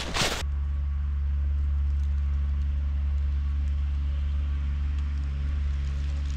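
Engine of a golf-course maintenance vehicle running steadily: a low, even drone with no change in speed.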